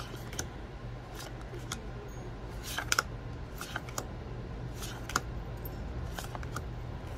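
Magic: The Gathering trading cards being flipped through one at a time in the hands, with irregular short clicks and snaps as each card is slid off the stack, about one or two a second. A steady low hum runs underneath.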